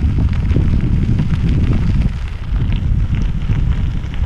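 Wind rumbling on an action camera's microphone while cycling, with bicycle tyres crunching and crackling over a crushed-gravel trail. The wind rumble eases a little about halfway through.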